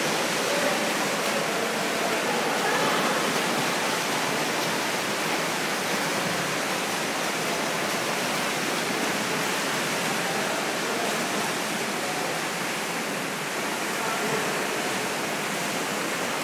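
Steady, echoing noise of an indoor competition pool during a swimming race: splashing and voices blurred into one even wash.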